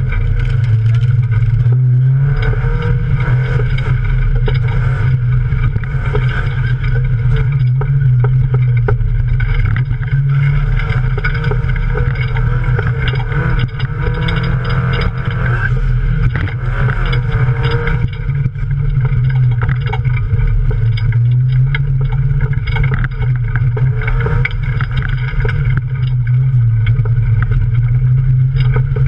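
Off-road race car's engine running hard, heard from inside the cabin, its note rising and falling with the throttle. Frequent knocks and rattles come from the car driving over rough, muddy ground.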